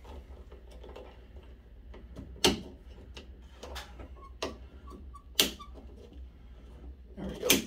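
A few sharp clicks and knocks as the ribbed plastic filter hose is pinched and pressed into a clip on the aquarium's rim, the loudest about five and a half seconds in, over a low steady hum.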